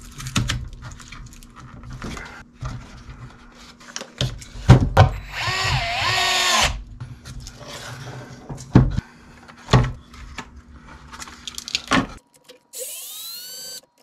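Clicks and knocks of plastic RC car chassis parts being handled and set down on a bench, with a short wavering whine about five seconds in. Near the end a cordless electric screwdriver runs in short spells, its motor pitch sliding up and down as it drives screws into the new chassis.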